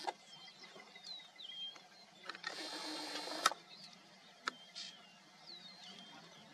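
A camera's lens zoom motor whirring for about a second, roughly midway, as the shot zooms in. Short, curved chirping whistles from small birds repeat throughout, and there are a few sharp clicks.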